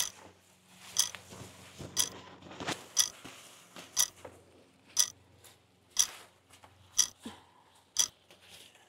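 Steady clock-like ticking, one sharp tick each second, with a couple of softer clicks between the ticks.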